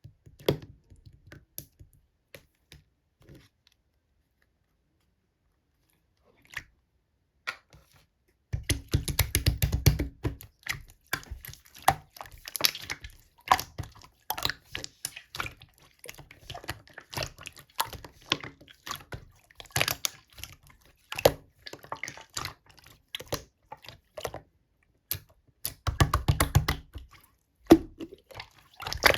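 Hands squishing and pressing slime, giving a dense run of sticky clicks and small pops. A few seconds of near quiet come before it starts in earnest.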